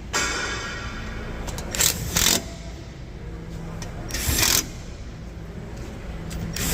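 Car engine running steadily, with a few short, loud bursts of noise about two and four seconds in and again at the end.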